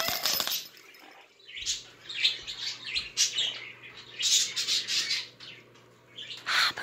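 Double yellow-headed Amazon parrot making raspy chattering sounds in four short spells with pauses between, after a brief rattling at the start.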